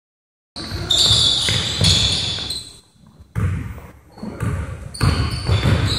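Basketball bouncing on a hardwood gym floor: about five heavy thuds echoing in the large hall, starting about half a second in, with high-pitched squeaks of shoes on the wood.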